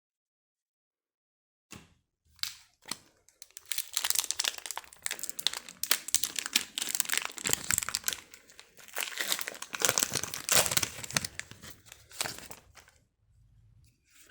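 Foil Pokémon booster pack wrapper being crinkled and torn open: a dense run of irregular crackling rustles that starts about two seconds in and stops shortly before the end.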